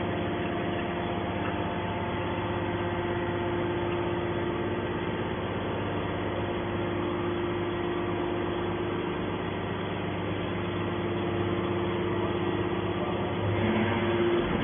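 Hydraulic metal baler running: a steady machine hum from its motor and hydraulic pump, growing a little louder near the end.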